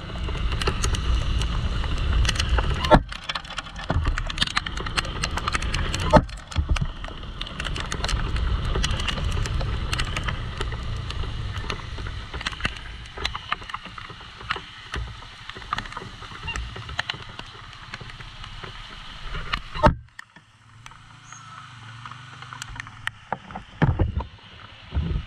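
Motorcycle riding through rain on a wet, flooded road: a steady rush of water and tyre spray over a low rumble, broken by many sharp clicks and knocks. About 20 seconds in the noise drops suddenly to a quieter low hum, with a few loud knocks near the end.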